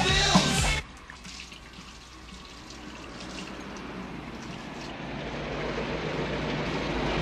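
Rock music cuts off abruptly under a second in, giving way to water running from a kitchen tap into a sink, a steady splashing hiss that slowly grows louder.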